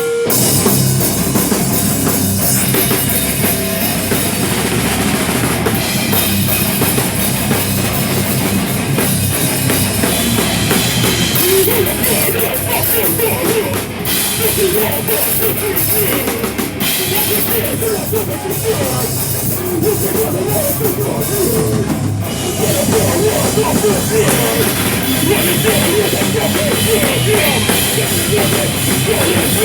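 A loud live rock band playing, a full drum kit driving it with bass drum and cymbals over guitars and bass.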